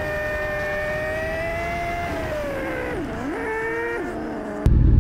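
Sport motorcycle engine running under load on a steep climb, a steady pitched whine; about three seconds in the pitch dips and comes back up, then drops away. Near the end a sudden loud low rumble takes over.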